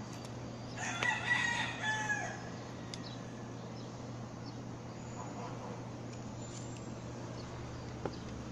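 A rooster crowing once, about a second in, lasting about a second and a half, over a steady low hum.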